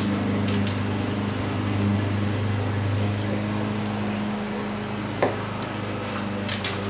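A steady low hum runs under a few light taps of a kitchen knife on a plastic cutting board as tender smoked brisket is cut into cubes; the taps come about five seconds in and again near the end.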